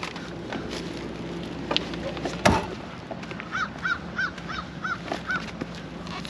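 Sharp knocks and rustles from handling a tied plastic trash bag, loudest about two and a half seconds in. Then a bird calls six times in quick succession, about three calls a second.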